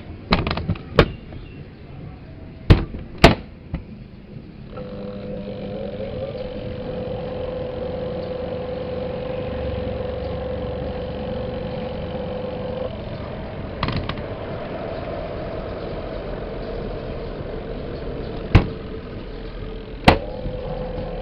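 A few sharp clicks, then a freshly repaired washing machine motor starts about five seconds in and runs with a steady hum. The tone shifts about halfway through, and a few more sharp clicks come near the end.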